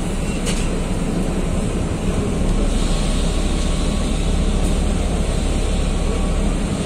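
Steady engine hum and road noise inside a BMC Belde city bus while it is under way, with a single light click about half a second in.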